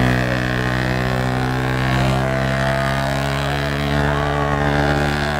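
A motor running steadily at an even pitch, with faint shouts from a crowd over it.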